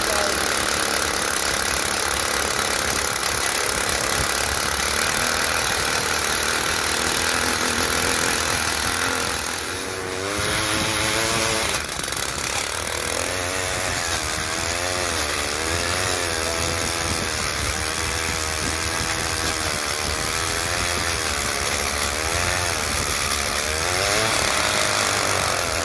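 Gas-powered ice auger running as it bores a hole through lake ice. It eases off briefly about ten seconds in, then its pitch wavers up and down as the bit cuts.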